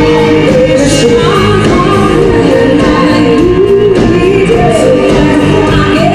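Live band music played loudly: a lead singer over the band and a drum kit with a steady beat.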